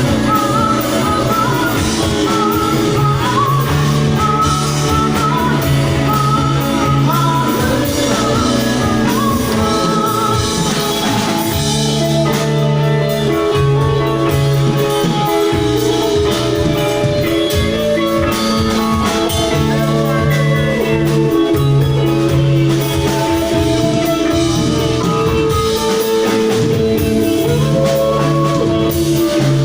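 A rock band playing a song live, with electric guitars, drum kit and singing.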